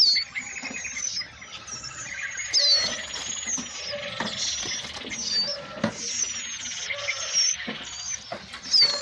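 Many caged young songbirds chirping: high, squeaky, down-sweeping calls repeated over and over, with a few knocks against the cages.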